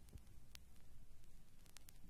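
Faint vinyl surface noise from a record turning under the stylus with no music playing: a low rumble and a few crackle clicks, one about half a second in and several close together near the end.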